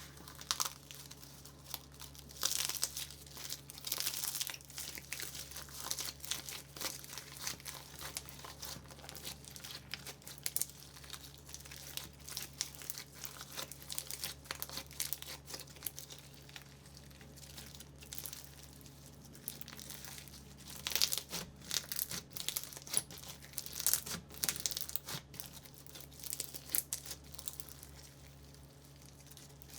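Slime being worked, making dense small crackles and pops. It gets louder in stretches a few seconds in and again about two-thirds of the way through, over a faint steady hum.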